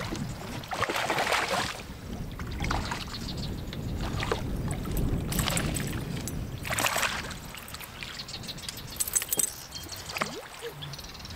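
A hooked largemouth bass splashing and thrashing at the water's surface beside a bass boat as it is reeled in, in several bursts of splashing. A few light metallic clinks come near the end.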